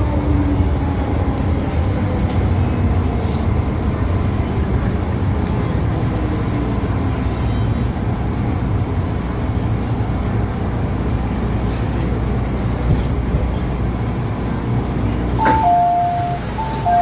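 Steady low rumble inside a first-generation MTR M-Train (CM Stock) car, with a faint whine falling in pitch over the first several seconds. Near the end comes a click, then an electronic chime alternating between two notes.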